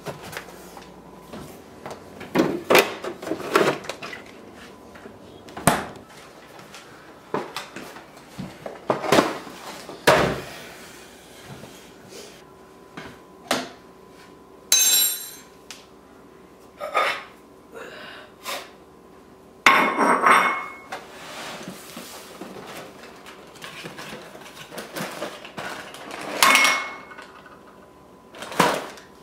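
Dishes and cutlery being handled: irregular knocks and clatters, a few of them ringing briefly as clinks.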